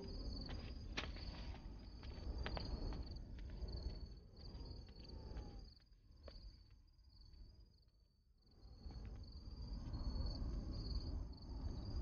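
Crickets chirping in a steady, pulsing high trill over a low background hum, with a few light footsteps in the first few seconds.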